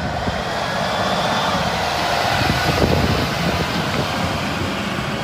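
Steady motor-vehicle running noise: a low engine rumble under an even hiss.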